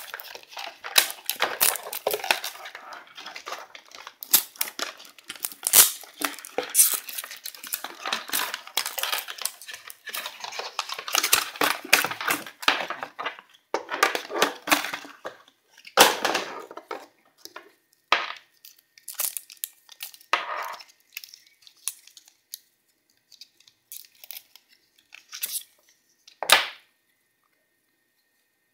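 Cardboard and plastic webcam packaging being torn, crumpled and handled by hand. There is dense crackling and rustling with sharp snaps for the first half or so, then sparser rustles and clicks that stop shortly before the end.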